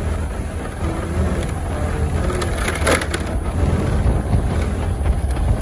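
Wind buffeting the microphone of a moving vehicle, a steady low rumble with a brief burst of crackling about three seconds in.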